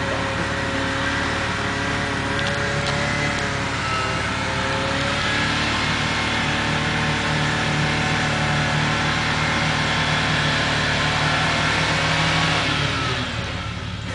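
Suzuki Samurai's four-cylinder engine running at steady high revs under load as it pushes through deep water, with the water churning and splashing around it.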